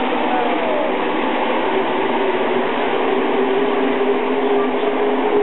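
A pack of NASCAR Cup stock cars running by, their V8 engines blending into one loud, steady sound; one engine note falls in pitch about half a second in as a car passes.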